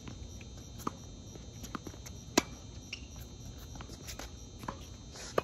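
Tennis ball struck by rackets and bouncing on a hard court during a doubles rally: a series of sharp pops at irregular intervals, the loudest about two and a half seconds in. Crickets chirp steadily underneath.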